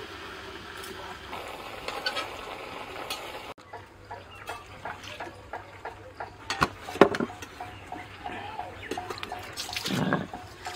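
Radish steaming and sizzling in a kadhai over a wood fire as a steady hiss. Then come light knocks and clicks, one sharp knock about seven seconds in, and water poured from a steel bowl splashing onto a stone grinding slab (sil) near the end as it is washed.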